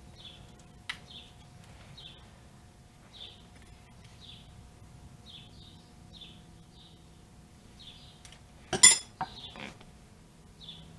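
A small bird chirping over and over, about once a second. Near the end comes a single loud metallic clink of a tool against metal, with a smaller click about a second in.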